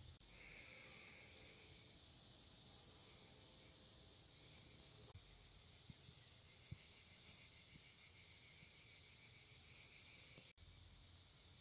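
Faint, high-pitched insect chirring in the summer grass, steady at first and taking on a fast, even pulse about halfway through; it drops out for an instant near the end.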